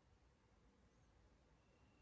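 Near silence: room tone.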